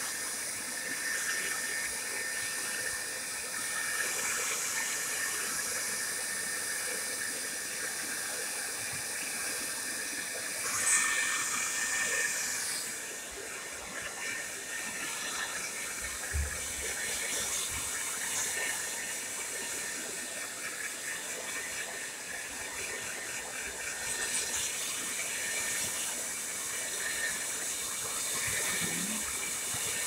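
Tresemme Salon Smooth Professional hair dryer running steadily, a rush of blown air with a thin high whine as it is worked through hair. The air briefly gets louder about eleven seconds in.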